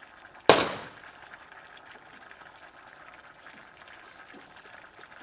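Chana batata curry bubbling at a simmer in a pot over a wood fire while a wooden spatula stirs it. About half a second in comes one sharp, loud knock that dies away quickly.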